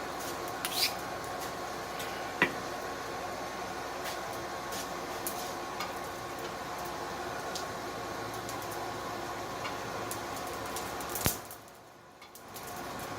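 Forge burner running steadily with a constant whooshing hum, with a few light metallic clinks and one ringing tap of steel. Near the end a sharp click comes and the steady sound drops away for about a second before it returns.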